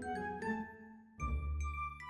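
Background music: a melody of sustained pitched notes over a low bass pulse, thinning out briefly about a second in before the full arrangement comes back.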